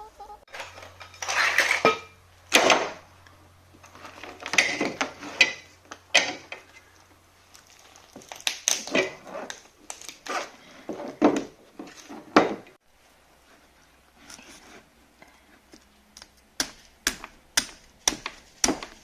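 Irregular clattering and knocking of hard objects being handled, with a quick run of sharp clicks near the end.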